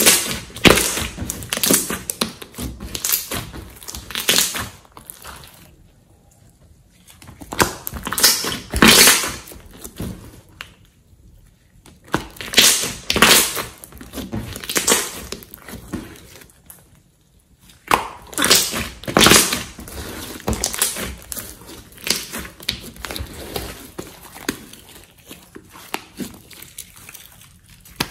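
Thick glossy slime being squeezed, kneaded and stretched by hands, making wet squelches with crisp clicks and pops. The sounds come in bursts of a few seconds with short quiet pauses between.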